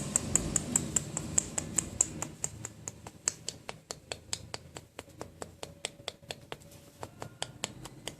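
A rapid series of small sharp clicks, about four or five a second at first, then slower, less regular and fainter after a few seconds.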